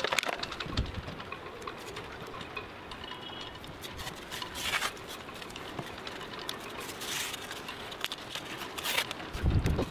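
Green painter's masking tape being pulled off the roll in several short rips and pressed down onto a fibreglass boat's gelcoat, with a low rumble near the end.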